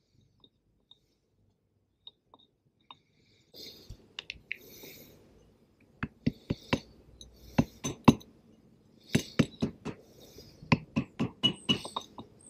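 Hammer tapping a socket to drive a new oil seal into a Ford Type 9 gearbox's clutch release bearing guide: sharp metallic clinks in quick clusters from about three and a half seconds in, light blows a little at a time to seat the seal evenly. Before that, only a few faint clicks.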